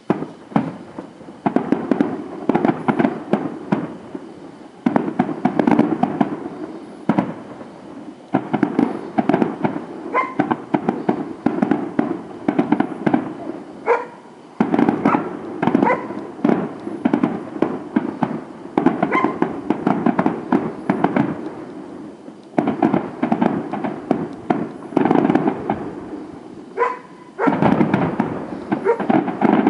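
Fireworks display: rapid, dense bangs and crackling of aerial shells bursting, starting abruptly and coming in volleys of several seconds with brief lulls between them.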